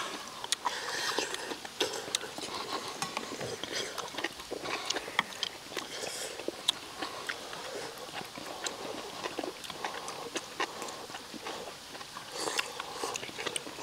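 Several people eating: chewing and slurping hot stew and rice, with many quick clicks of chopsticks and spoons against stainless-steel bowls.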